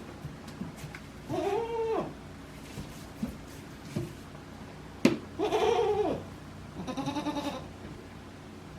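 Alpine–Saanen cross goats bleating three times: two long calls that rise and fall in pitch, then a third that quavers rapidly. There is a sharp click just before the second call.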